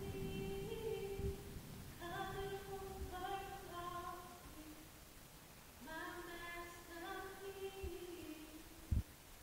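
A woman singing a cappella in three slow phrases of long, held notes with short breaths between them. A single low thump sounds near the end.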